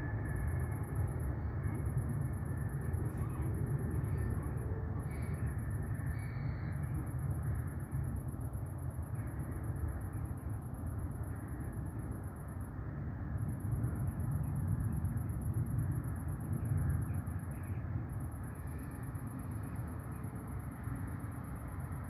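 Steady low rumble of distant traffic, with a thin, high insect trill above it that breaks off briefly a few times.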